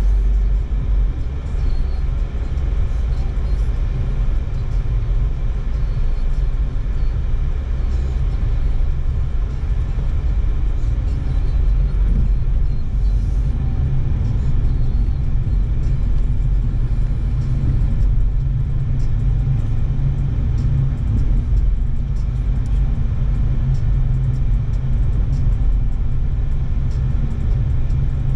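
Steady low rumble of a car driving on city streets, heard from inside the cabin: engine and tyre noise.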